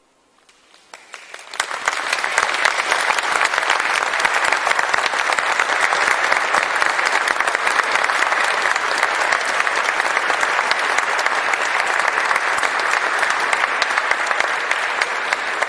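Audience applauding. The clapping starts about a second in, swells quickly to a steady level, and cuts off suddenly at the end.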